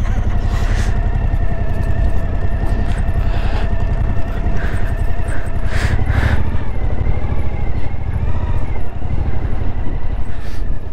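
Suzuki V-Strom 1050XT's V-twin engine running steadily under a rider on a dirt track.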